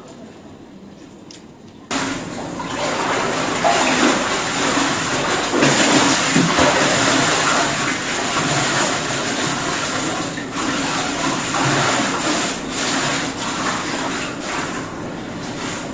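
Water gushing hard, starting suddenly about two seconds in and running on steadily.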